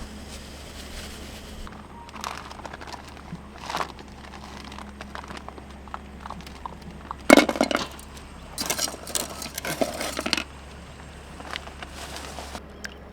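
Hard objects clinking and clattering in short bouts. The loudest knock comes about seven seconds in, followed by a longer rattle over the next two seconds.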